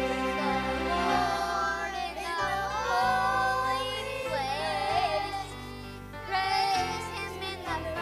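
Children's choir singing a praise song, with long held notes over a steady instrumental accompaniment.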